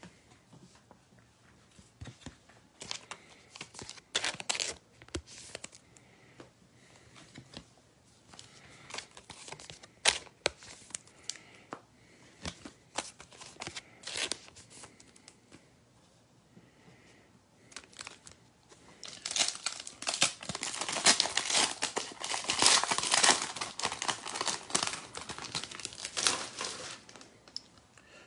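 A trading card pack's wrapper being handled and torn open: scattered crackles and rustles at first, then a dense stretch of crinkling lasting several seconds, about two-thirds of the way in.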